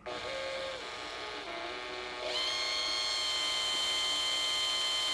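Cordless drill motor running steadily, spinning a workpiece chucked in it. It starts suddenly, sags slightly in pitch, then speeds up to a louder, higher steady whine a little over two seconds in.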